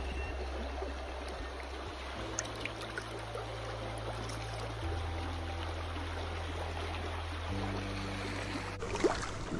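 River water flowing steadily, under soft background music of held low notes that change every few seconds. A sharp knock comes near the end.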